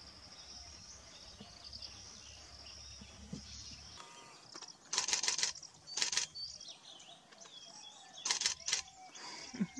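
Three loud rustling swishes, about a second or more apart, as a Sri Lankan elephant thrashes a clump of uprooted grass to shake the soil off before eating it, over a steady high insect drone.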